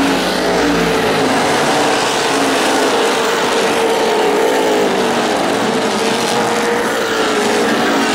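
V8 engines of a pack of NASCAR Late Model stock cars running together around a short oval, a steady loud drone whose pitch rises and falls a little as the cars go through the turn.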